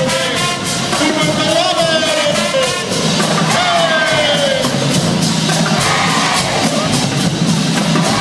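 High school marching band playing: brass horns over a drumline keeping a steady beat.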